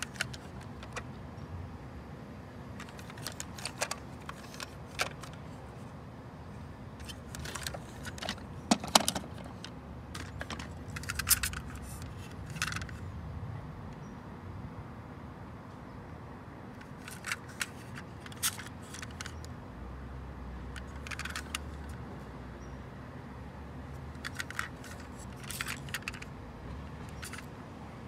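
Small plastic toy trucks being handled: scattered light clicks and short rattles as they are picked up, turned in the hand and set down, over a steady low hum.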